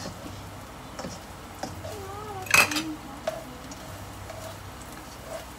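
A spatula knocking and scraping in a wok as garlic is stirred: a few light knocks, with one much louder clatter about two and a half seconds in.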